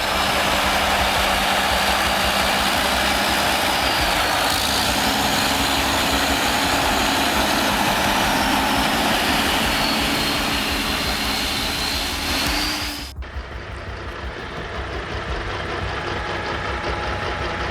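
Logging truck's diesel engine running hard under a loud, dense rushing noise. About thirteen seconds in, the sound cuts off abruptly and a quieter, steady engine sound follows.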